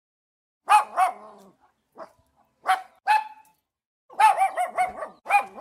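Boxer barking: a few single, spaced barks, then a quick run of about five barks around four seconds in.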